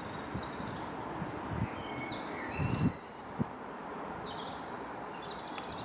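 Songbirds singing fast trills and chirps over steady outdoor background noise, with irregular low gusty rumbles, the strongest a little before halfway.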